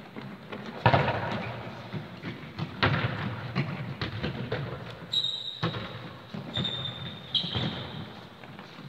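A football being kicked and thudding around an indoor sports hall, the sharp impacts ringing on in the hall's echo, the loudest about a second in and another near three seconds. Several smaller knocks and a few short high squeaks come later.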